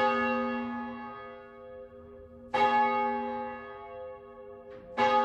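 Church bell tolling: three strikes about two and a half seconds apart, each ringing on and slowly fading.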